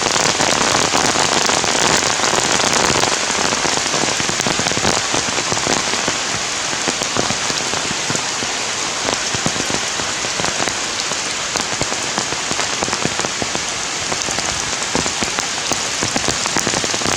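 Heavy rain falling steadily, with many close drops striking an umbrella overhead.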